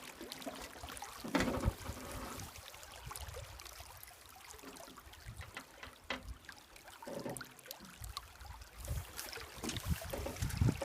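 River water running and trickling, with scattered light knocks and a few low thumps, the strongest about a second and a half in and near the end.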